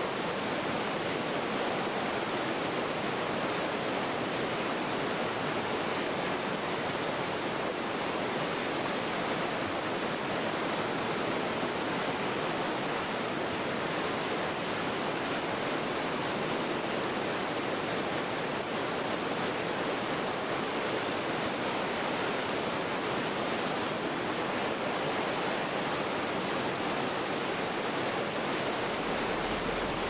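Whitewater river rapids rushing steadily, a dense, even noise of churning water with no let-up.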